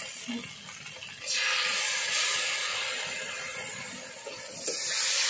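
Tomato paste sizzling as it hits hot oil and fried spice paste in a karahi. The sizzle starts suddenly about a second in, eases a little, then swells again near the end.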